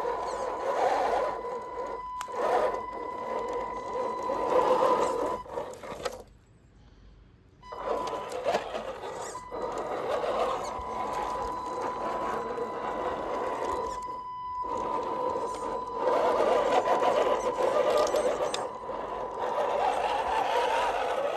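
Radio-controlled pickup crawler's electric motor and gearbox whining steadily as it climbs over dirt and grass. The whine cuts out about six seconds in for a second and a half, and again briefly near fourteen seconds, each time the throttle is let off.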